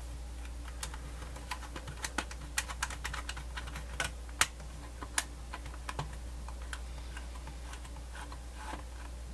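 Small, irregular plastic clicks and ticks from handling a portable cassette radio, a thumb working the tuning wheel on its side, over a steady low hum.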